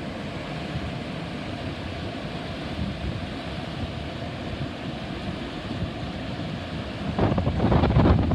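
Wind buffeting the microphone over a steady rushing background. It grows louder and more gusty about seven seconds in.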